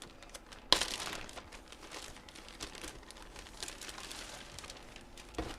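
Card packaging crinkling and rustling as trading cards are unwrapped and handled, starting with a sharp rustle about a second in and then a continuous crackle.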